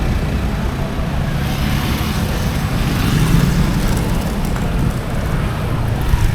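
Busy road traffic: vehicle engines running and tyres hissing as cars pass close by, one louder pass about two seconds in.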